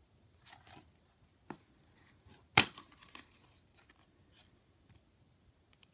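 Plastic DVD cases being handled, giving a faint rustle and a few scattered clicks and knocks, the loudest about two and a half seconds in.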